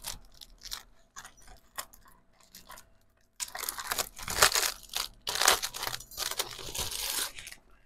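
Paper and plastic packaging rustling and crinkling as sticker sheets are slid out of a translucent sleeve by hand. It is soft and scattered at first, then louder and continuous from about three and a half seconds in until just before the end.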